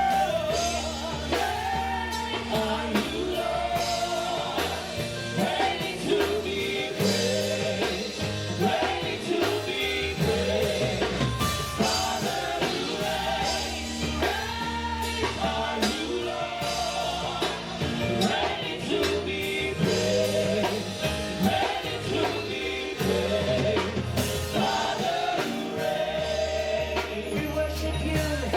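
Live gospel praise music: a worship team singing with a band, with bass, drum kit and guitar.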